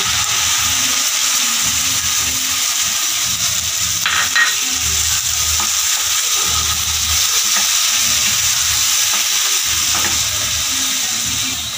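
Tomato puree sizzling in hot oil with fried onion paste and red chilli paste in a pan, a steady frying hiss, while a spoon stirs it with soft irregular knocks and scrapes against the pan.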